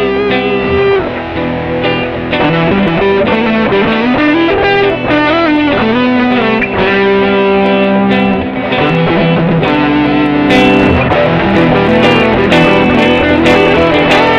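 Electric guitar loop played back by an Electro-Harmonix Nano Looper 360 pedal, with a live electric guitar lead over it whose notes bend and slide in pitch. From about ten seconds in, sharp strummed chords come in.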